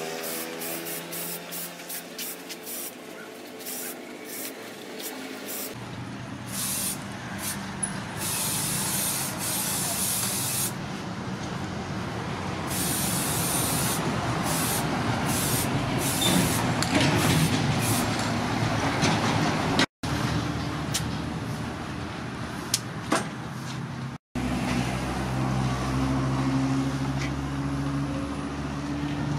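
Aerosol spray can hissing in repeated short bursts, with a few longer sprays, as a coating goes onto a finished axe. In the last few seconds a low steady hum comes in.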